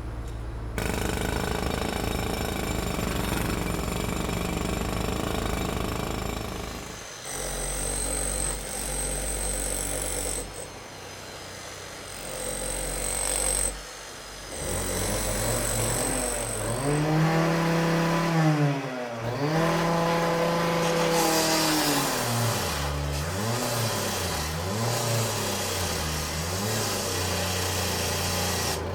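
A jackhammer rattling steadily for the first few seconds, then an angle grinder cutting metal in three spurts, its high whine starting and stopping. After that, the two-stroke engine of a Stihl 14-inch abrasive cut-off saw revs up and down over and over while it cuts metal bar.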